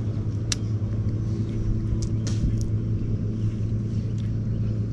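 Boat engine running steadily with a low, even hum, and a few short clicks about half a second, two seconds and two and a half seconds in.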